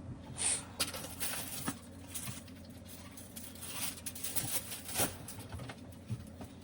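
Soft, scattered kitchen handling sounds: light rustles with a few short clicks and taps, as food and utensils are moved about during preparation.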